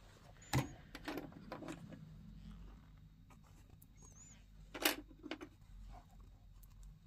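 Quiet handling noises as fabric is fitted and secured: a few light clicks and taps, the loudest about five seconds in, with faint rustling between.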